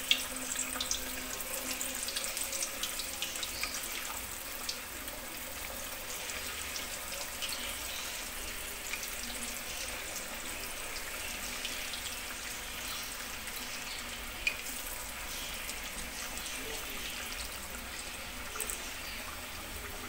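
Marinated fish pieces deep-frying in hot oil in a wok: a steady sizzle with scattered crackles and pops, busier in the first couple of seconds, and one sharp pop about halfway through.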